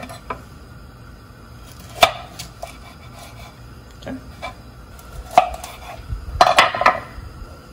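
Kitchen knife cutting Brussels sprouts in half on a wooden cutting board: a few separate knocks of the blade meeting the board, then a quick run of cuts near the end.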